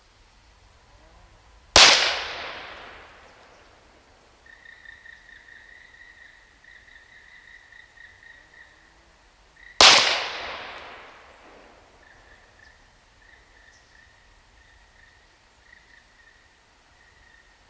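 Two shots from a .22 PCP air pistol, about eight seconds apart. Each is a sharp crack with a long echoing tail.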